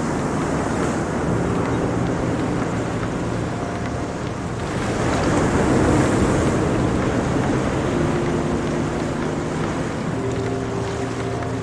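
Sea surf breaking and washing over rocks, a steady rush of foam that swells into a louder wave about halfway through. Soft held music notes sit underneath.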